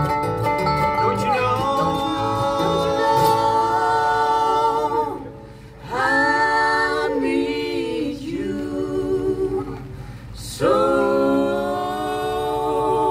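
Bluegrass band playing live, with several voices singing in harmony on long held notes with vibrato, in three phrases broken by short pauses about five and ten seconds in. Upright bass and string instruments play under the singing, the bass notes dropping out after about three seconds.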